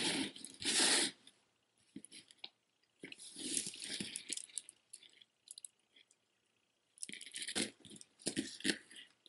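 Faceted glass beads of a necklace clicking and rattling against each other as the strand is handled, in three bursts of a second or two each.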